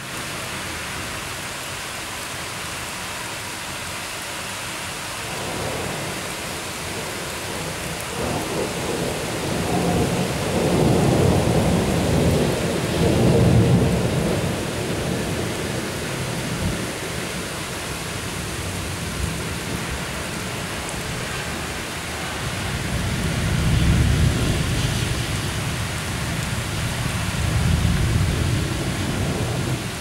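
Steady rain falling during a thunderstorm. A long roll of thunder swells up and fades about a third of the way through, and another rolls in two swells near the end.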